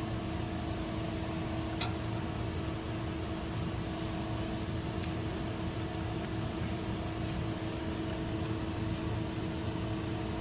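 Steady machine hum with a constant drone and a faint tick about two seconds in. It is unchanged throughout, with no start-up of a compressor.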